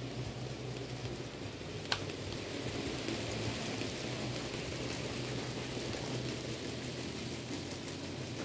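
N-scale model train rolling along the layout's track: a low steady hum with an even, rain-like patter of small wheels on the rails, and a single sharp click about two seconds in.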